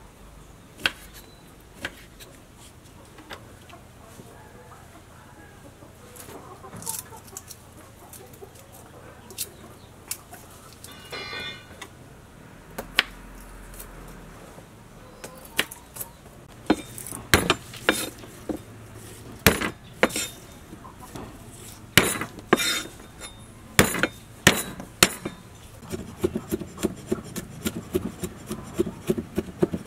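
A knife cutting limes on a wooden cutting board: scattered sharp taps at first, then frequent loud knocks of the blade on the board. Near the end a cleaver chops on the board in a fast, even rhythm, mincing garlic.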